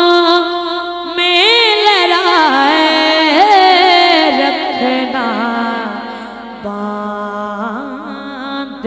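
A man singing a naat in long, drawn-out notes that waver and glide in pitch, ornamented melisma with no clear words.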